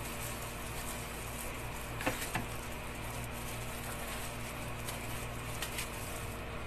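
A steady low hum with light handling sounds: a couple of small clicks about two seconds in and a few faint ticks later, from a pandan-leaf-wrapped chicken parcel being handled and set on a plate.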